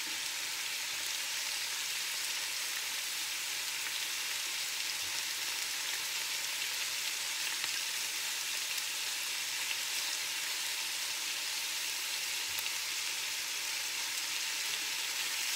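Steak fajita strips with peppers and onions sizzling steadily in a hot cast-iron skillet, with a few light clicks as metal tongs turn the meat.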